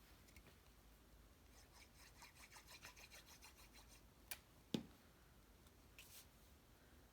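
Faint rubbing and crinkling of cardstock being folded and creased along its perforated lines by hand, with two light taps about four seconds in.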